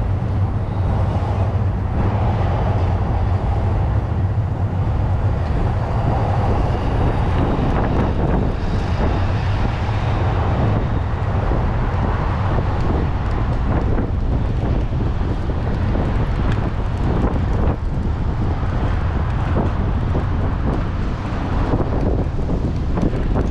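Road traffic passing through a city intersection: cars, vans and a small truck driving by in a steady wash of engine and tyre noise, with wind rumbling on the microphone.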